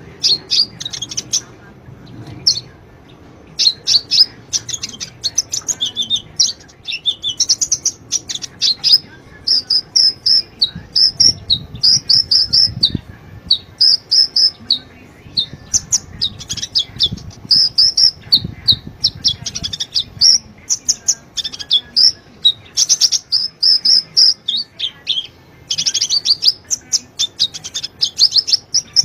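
Sunbird song: rapid high, sharp chirps and twittering phrases, run together into a fast trill near the end. It is a lure recording, played to get captive sunbirds to start singing.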